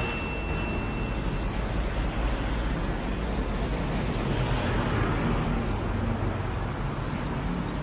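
Busy street ambience: a steady wash of road traffic with a low engine rumble.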